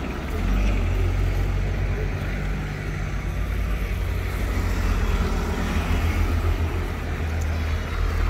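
Street noise with a steady low rumble from road vehicles.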